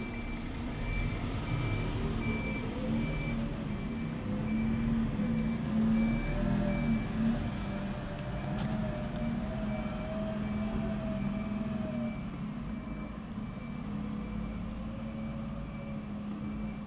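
Dennis Eagle refuse lorry reversing: its reversing alarm beeps at a steady, regular pace, about one and a half beeps a second, over the running engine, whose pitch slowly rises and falls as the lorry moves.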